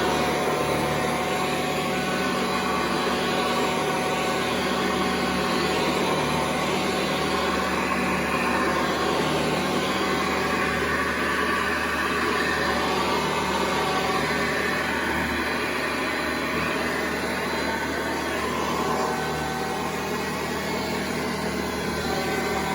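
Hoover Convertible model 1076 upright vacuum cleaner running steadily, a constant motor and fan noise, easing slightly near the end.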